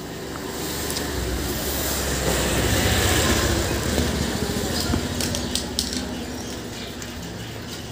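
Background noise with a low rumble that swells to about three seconds in and then slowly fades, with a few faint clicks in the second half.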